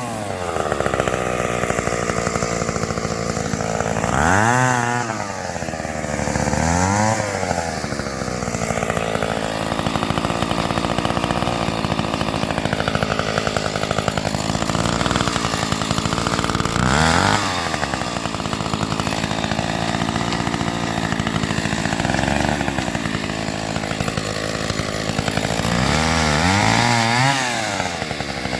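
A Stihl 031AV two-stroke chainsaw runs steadily at speed throughout. Its engine note swoops up and back down about five times as the throttle is worked.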